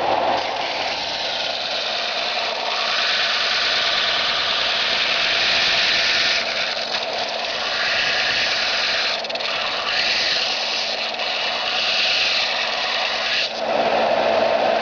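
Belt sander running steadily with a dense whirring noise and a low hum, its level shifting slightly and dipping briefly near the end; it is running normally after being repaired.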